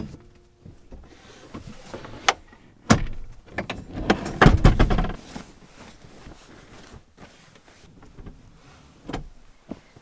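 A camper van's rear bench seat is let down into a bed: a sharp click of the catch, then a loud sliding clatter of the seat mechanism from about three to five seconds in. After that come quieter rustling of bedding and a couple of knocks.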